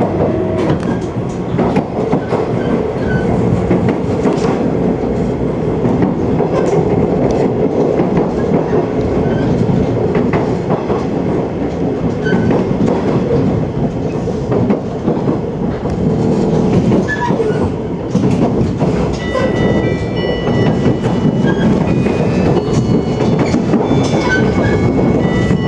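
Running sound of a JR 485 series limited express electric train heard from inside a passenger car: a steady rumble with the clickety-clack of wheels over rail joints. From about two-thirds of the way through, short high squeals join in.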